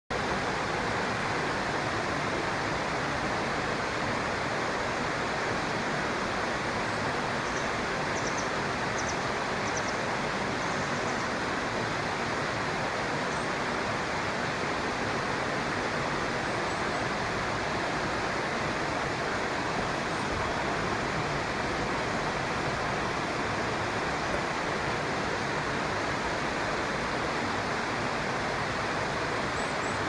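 Steady rush of flowing stream water, even and unbroken, with a few faint high chirps about a third of the way in.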